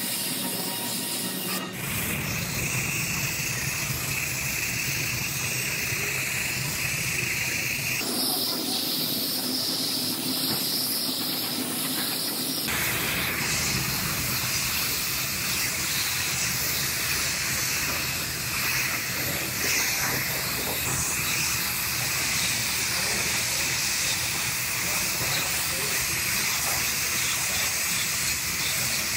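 Gravity-feed paint spray gun hissing steadily as compressed air atomizes paint, with abrupt changes in tone about 2, 8 and 13 seconds in.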